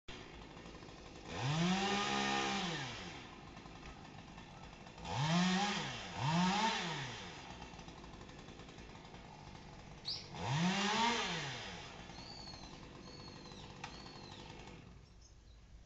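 Chainsaw revving four times, each rev rising and falling in pitch, with the second and third close together. A bird gives a few short falling chirps in the last few seconds.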